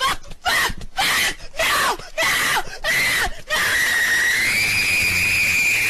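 Loud, high-pitched screaming: about six short shrieks that each fall in pitch, then one long scream held steady from about halfway in.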